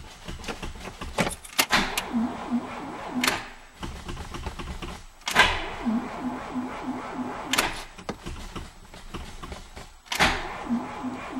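Inside a car cabin while driving: engine and road rumble with rattles and knocks, broken by several abrupt cuts. In some stretches a low blip repeats about three times a second.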